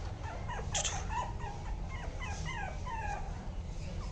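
Young Yorkshire terrier puppies, about 50 days old, whimpering and yipping: a rapid string of short, high squeaks, each falling in pitch, that fades out shortly before the end.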